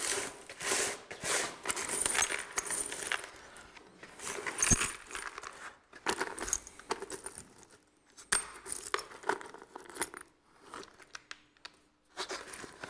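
Loose metal rivets clinking and jangling against each other and the plastic bucket as a hand rummages and stirs through a bucketful of them. The rattling comes in irregular bursts with short pauses, loudest a little under five seconds in.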